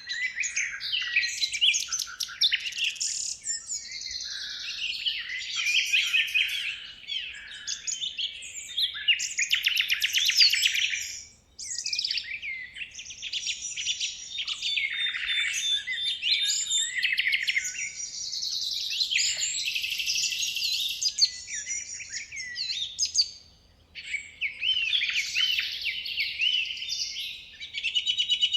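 Several birds chirping and trilling in a dense, high-pitched chorus, with short pauses about 11 and 23 seconds in.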